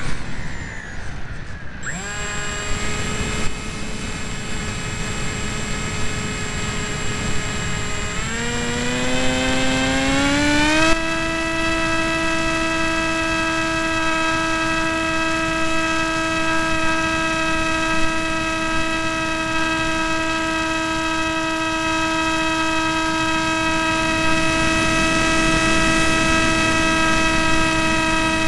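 Electric motor and propeller of an AXN Floater RC plane, heard from an onboard camera. The motor whines steadily at part throttle, rises in pitch about eight seconds in as the throttle is opened, then holds a steady higher whine as the plane climbs. Wind rushes over the microphone throughout.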